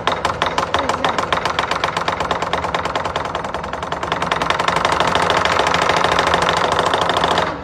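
Southern lion dance percussion, a big lion drum with clashing cymbals, beating a fast, even roll that quickens and grows louder, then stops abruptly near the end.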